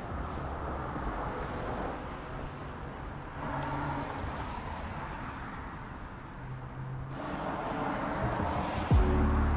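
Cars passing on a rain-wet street, their tyre noise swelling and fading twice over steady street ambience.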